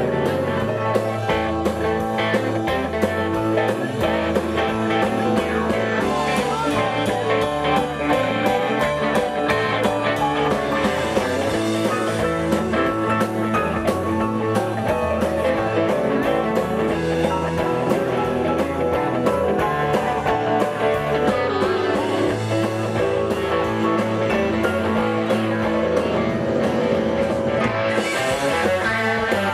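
Live southern rock band playing an instrumental stretch: two electric guitars over keyboards and drums keeping a steady beat.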